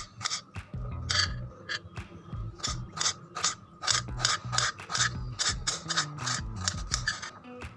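Kitchen knife slicing a red onion into long strips on a cutting board: a quick, uneven run of sharp chops against the board, about four a second.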